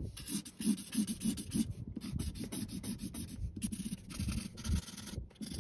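Felt-tip marker scratching across a sheet of paper as large letters are written, in a run of short, irregular strokes with brief pauses between them.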